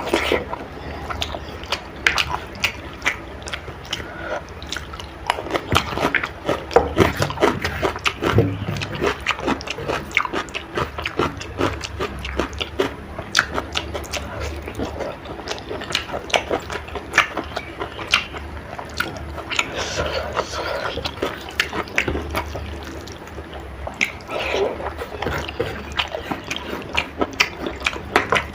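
Close-miked wet chewing and lip smacking while eating spicy chicken curry with rice, with many quick sticky mouth clicks.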